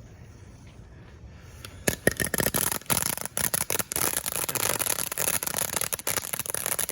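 Barn Burner ground firework going off about two seconds in: a steady hiss of burning with dense, rapid crackling pops.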